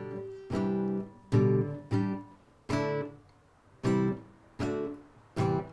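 Spanish-style acoustic guitar strummed one chord at a time, about seven strums, each left to ring and die away before the next.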